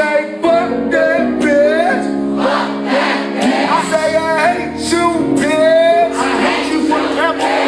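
Live band music with held keyboard chords while a singer sings melodic, gliding lines into a microphone.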